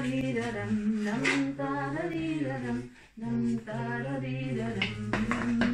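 Wordless singing by a man and a woman together: a slow tune of held notes in two voices, one low and one higher, with a short break about three seconds in.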